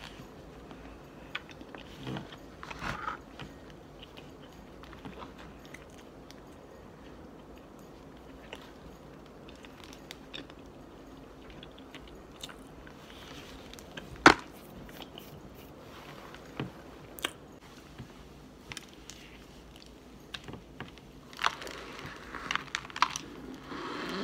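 Biting into and chewing a block of pressed cornstarch: scattered crisp crunches and clicks with quiet stretches between, one sharp loud click about halfway through, and a run of crunchy bites near the end.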